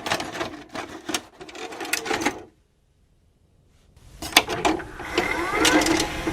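Rapid mechanical clicking and rattling, which stops dead for about a second and a half, then comes back as sharp clicks with a rising whine near the end.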